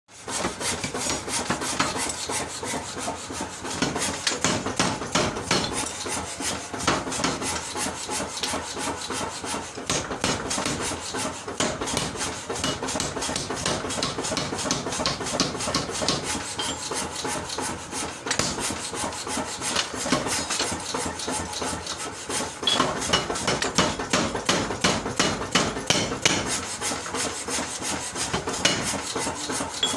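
A 75 kg Madni power forging hammer running, its ram striking in a rapid, steady series of blows.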